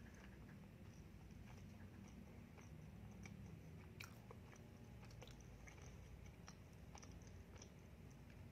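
Faint, close-miked chewing of a mouthful of doughnut, with scattered small clicks and crunches.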